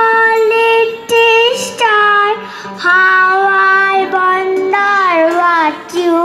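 A young girl singing solo through a microphone and stage loudspeaker, holding long, steady notes in short phrases with brief breaks between them.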